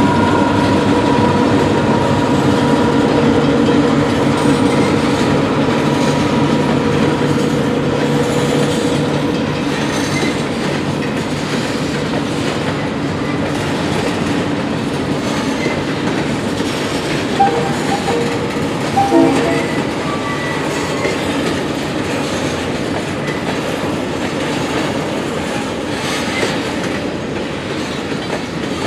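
Freight train of empty covered grain hoppers rolling through a grade crossing, wheels clicking over the rail joints. At first the steady drone of the departing EMD GP38M-2 diesel locomotives is heard, and it fades out over about ten seconds. A couple of short clanks come a little past halfway.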